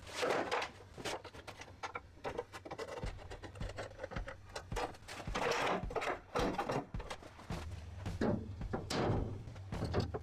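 Clicks, knocks and metallic clanks of hand tools unbolting the steel hinge brackets from a BMW E46 trunk lid and handling the loose hinges, over a steady low hum.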